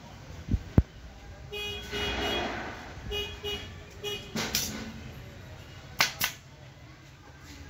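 A pneumatic upholstery staple gun fires two staples in quick succession, two sharp cracks about six seconds in. Before that come a sharp knock about a second in and a horn sounding several short toots.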